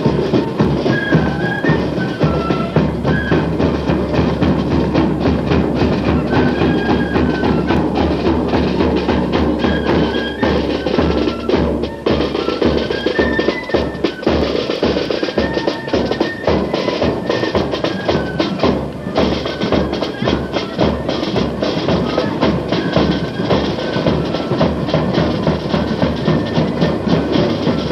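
Marching flute band playing: a tune of short, high flute notes over a steady, heavy beat of snare and bass drums.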